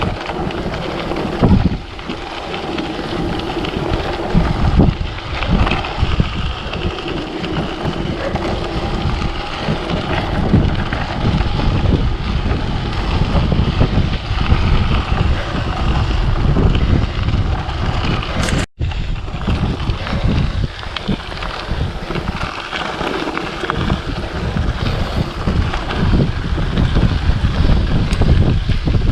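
Strong, gusty wind buffeting the microphone, a loud, dense rumble that swells and dips unevenly. It drops out for a split second about two-thirds of the way through.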